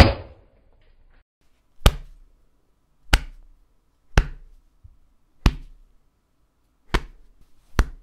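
A series of punch sound effects: seven sharp, separate hits about one to one and a half seconds apart, each a short impact with a brief fading tail.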